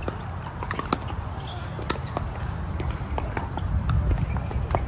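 Pickleball paddles hitting the hard plastic ball, with ball bounces on the court: many sharp pops at irregular spacing from this and neighbouring courts.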